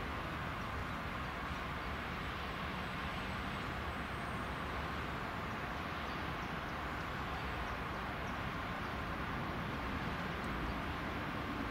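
Steady distant traffic and industrial rumble, even in level, with no single event standing out.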